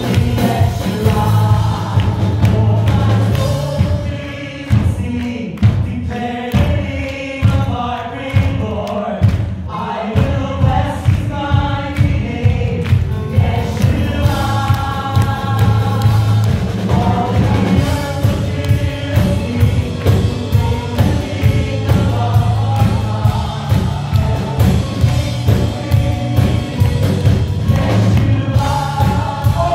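Gospel music: a choir singing over a steady beat with strong bass.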